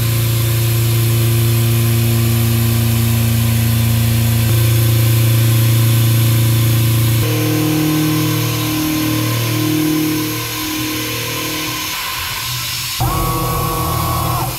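CNC milling machine cutting 316L stainless steel: the spindle and cut make a steady hum with a hiss over it. From about halfway the pitch wavers up and down as the cut changes, and near the end a higher, steady whine takes over briefly.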